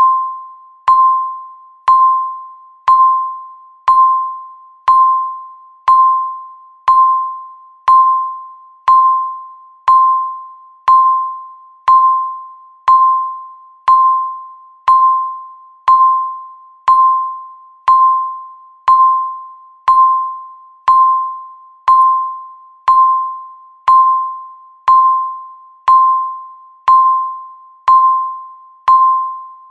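Countdown timer beeping once a second: a single mid-pitched electronic beep, each starting sharply and fading away before the next, about thirty in a row.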